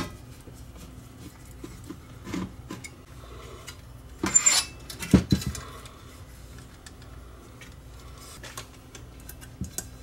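Small metal tools and parts being handled on a workbench: scattered light clicks and clinks, with a louder rattling scrape about four seconds in and a couple of knocks just after.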